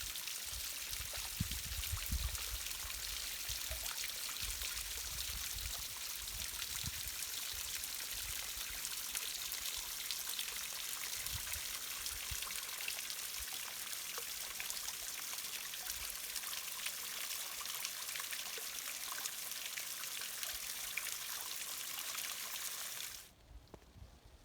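Mountain stream water running and splashing over rocks in a steady rush, with a few low thumps in the first seconds. It cuts off abruptly near the end to a much quieter background.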